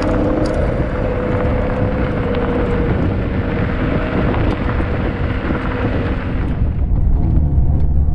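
Turbocharged BMW M50B30 straight-six in a drift Ford Scorpio running at low speed while the car rolls over gravel, a deep steady rumble with a steady whine and tyre noise on top. The hiss drops away near the end.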